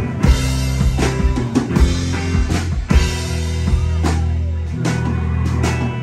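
Live rock trio of electric guitar, bass and drum kit playing an instrumental passage: loud drum hits and cymbal crashes over held bass and guitar notes.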